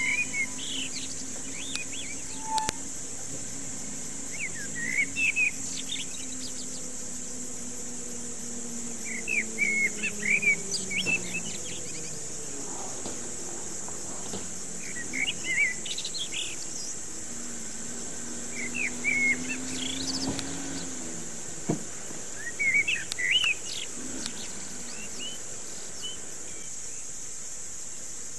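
A bird singing short chirping phrases every few seconds over a steady high-pitched insect drone.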